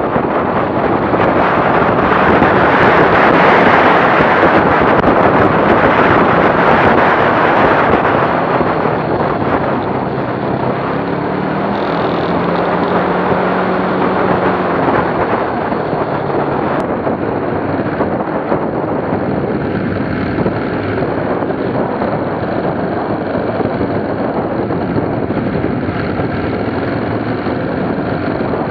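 Rush of wind over the microphone of a motorcycle riding along a road, with the engine running underneath. The wind is loudest for the first eight seconds or so, then eases, and a faint engine note shows through in the middle.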